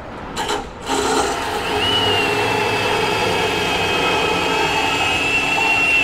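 Handheld power tool running steadily with a high whine, cutting into rusty sheet steel. A couple of brief scrapes come first, and the tool settles into a continuous run about a second in.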